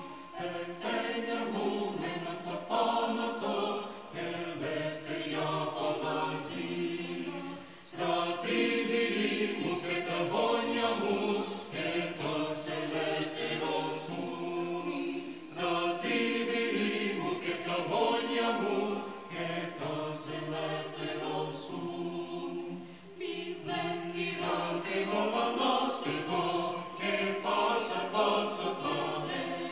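Mixed chamber choir singing a Greek traditional song a cappella, several voice parts moving together in sustained phrases.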